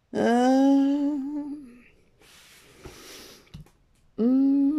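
A woman humming a long, steady 'mmm' for nearly two seconds, then a brief soft rustle and a couple of faint clicks, with a second hum starting near the end.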